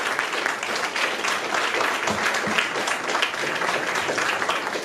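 Seated audience applauding, many hands clapping at once in a steady patter.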